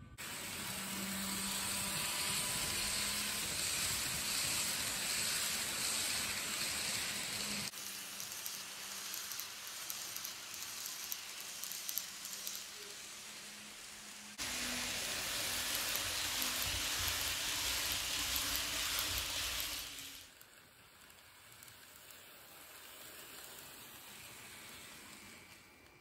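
N scale model locomotives running along the track close to the microphone: a steady hissing whir of the small motors and wheels on rail with a faint low hum. It changes abruptly between clips about 8 and 14 seconds in, and drops quieter about 20 seconds in.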